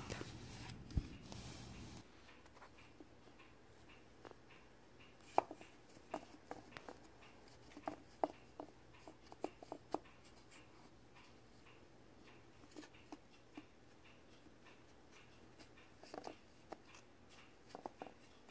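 Faint, irregular light taps and scuffs of a cat pawing at foam balls inside a wooden puzzle box, in a cluster over several seconds and again near the end, with quiet stretches between.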